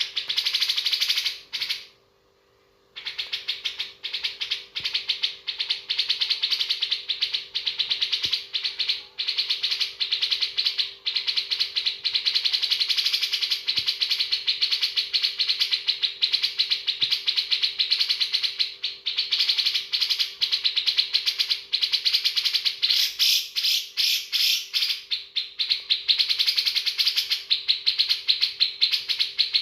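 Cucak jenggot (grey-cheeked bulbul) singing a long, rapid, almost unbroken song packed with learned imitations of other birds' phrases, pausing briefly about two seconds in.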